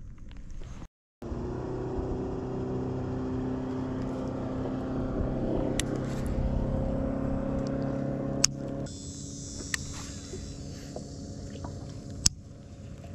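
A steady motor drone with several held pitches runs until about nine seconds in, then drops away to a higher hiss. A few sharp knocks or clicks stand out, the loudest near the end.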